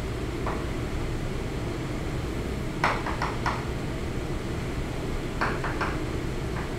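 Chalk tapping and striking on a blackboard as short strokes are drawn: one tap, then a quick group of four about three seconds in, the loudest, and a group of three a little later, over a steady low room hum.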